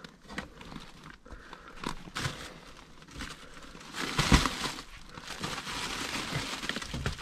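Crinkling and crackling of an old, collapsed aluminium-foil flexible duct being pulled off a ventilation unit's intake. It goes in irregular rustles, with a louder crunch about four seconds in.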